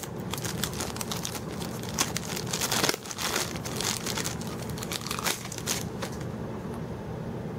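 Packaging crinkling and rustling with scattered light clicks and knocks as items are handled, dying down about six seconds in.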